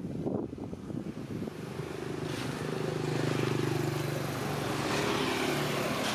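A motor vehicle's engine running steadily, growing louder about two seconds in as it draws near, then holding.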